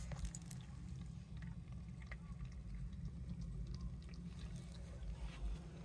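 A cat eating wet food from a bowl: faint, scattered chewing and smacking clicks over a steady low hum.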